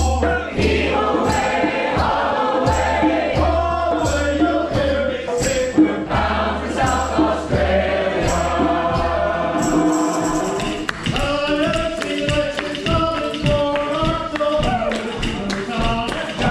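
A large group of voices singing together with a djembe beating a steady rhythm and jingling hand percussion; about ten seconds in the drum and percussion stop and the voices carry on alone.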